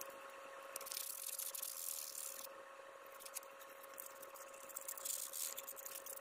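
Faint scratchy rubbing of an abrasive on the painted metal body of an old toy tow truck, worked by hand to clean off rust and paint, in two spells: from about a second in, then again from about four and a half seconds in. A faint steady hum runs underneath.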